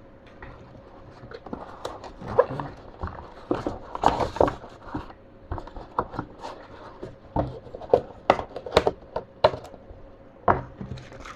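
Keyboard box and its packaging being handled and opened: irregular rustles, taps and clicks of cardboard and contents.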